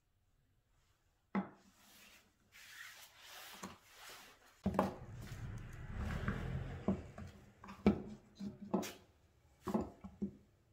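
Plywood plane body knocked and rubbed against a wooden workbench while steel bar clamps are slid into place and tightened on it. A sharp knock about a second in, then several sharp clicks and knocks in the second half.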